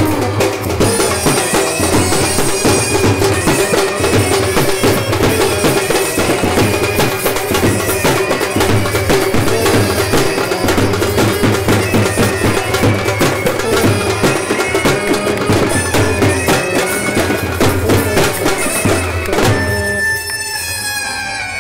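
Indian street brass band playing loud, fast traditional music: clarinet and brass carry a held, reedy melody over rapid beats of a large bass drum and side drums. About twenty seconds in the drumming stops, and the melody goes on alone in stepping, falling notes.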